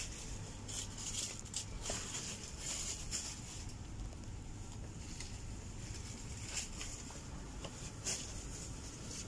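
Quiet grocery-store ambience: a steady low hum with scattered light scuffs and taps from footsteps and the handling of the phone while walking along the aisle.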